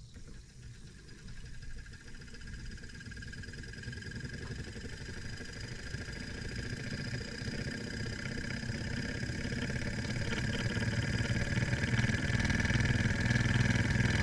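Weeden Model 106 toy DC electric motor, built 1912–1918, starting up and running with a whirring hum and steady whine. It drives an accessory through a spring drive belt and grows steadily louder. The owner finds it not quite as smooth under this belt load.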